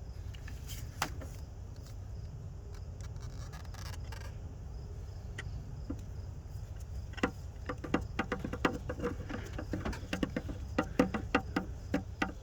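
Light metallic clicks and taps from tools and parts being handled at the distributor of a 1998 GMC K1500's 5.7 L V8, sparse at first, then coming in a quick irregular run from about seven seconds in. A steady low hum runs underneath.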